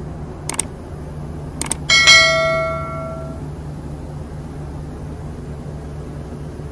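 Two light metallic clicks, then a steel part knocked once about two seconds in, ringing like a bell and dying away over about a second and a half. A steady machinery hum runs underneath.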